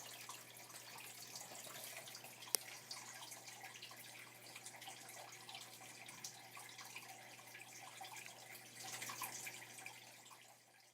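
Faint trickling and dripping water, with many small ticks and one sharper click about two and a half seconds in. It swells a little near the end, then fades out.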